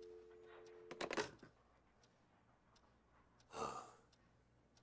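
Telephone dial tone, a steady two-note hum, cut off about a second in by a short clunk. A single breathy sigh about three and a half seconds in.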